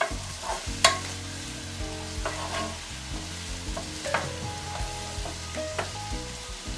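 Garlic and onions frying in bacon fat in a pot, sizzling steadily while a utensil stirs them, with irregular knocks and scrapes of the utensil against the pot, the loudest about a second in.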